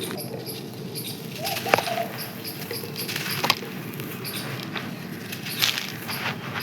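A dry, crispy sand crust crumbling and crunching, with scattered sharp crackles (three stand out) and a brief squeaky chirp about a second and a half in, over a steady low background hiss.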